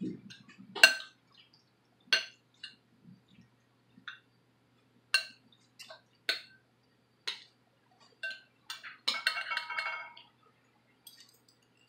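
Metal fork clinking against a glass bowl: a series of sharp single clinks a second or so apart, with a short cluster of rattling clinks about nine seconds in.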